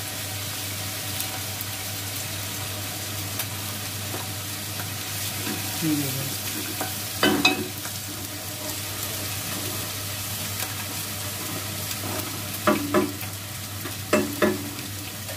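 Onions and ginger-garlic paste frying and sizzling steadily in oil on a gas stove. A metal spatula knocks and scrapes against a steel pot, in pairs of clanks about halfway through and twice near the end.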